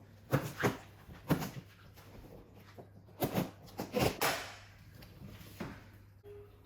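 A product box being opened and its packaging and parts handled: a series of short rustles and knocks, some a few seconds apart.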